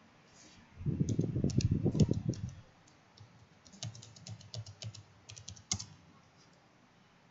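Typing on a computer keyboard in two bursts: first a loud, heavier flurry of keystrokes, then a lighter run of separate key clicks.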